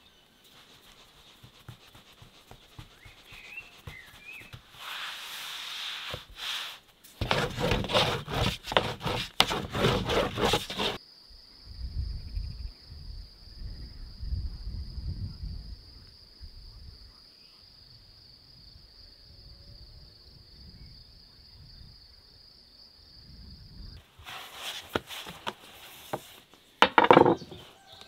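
Dough being worked and rolled out on a wooden board: a run of rubbing and knocking strokes. Then a steady high insect trill over a low wind rumble, and near the end a few knocks on the board with one sharp hit.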